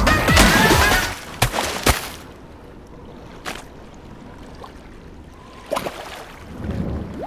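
Cartoon background music fading out with watery splash sound effects in the first two seconds, as the seal surfaces. Then a quiet, steady hiss of ambience with a few short, soft knocks.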